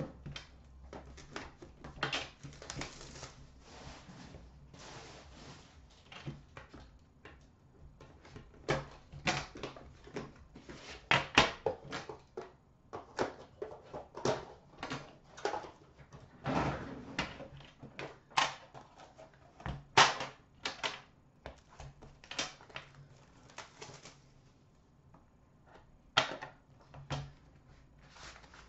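Hands unpacking and opening a hockey card box on a glass counter: irregular clicks, rustles and scrapes of packaging being handled, with a few sharper knocks about 11 and 20 seconds in.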